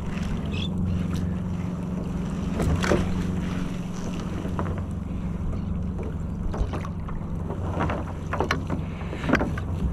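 A motor hums steadily and low while water splashes sharply a few times, about three seconds in and again near the end, as a shark thrashes in a bait net at the surface.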